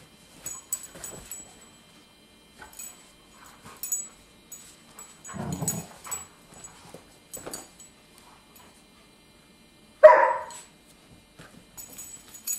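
Kuvasz puppy and golden retriever at play: soft scuffling and rustling throughout, a low growl about five and a half seconds in, and one loud, short bark about ten seconds in.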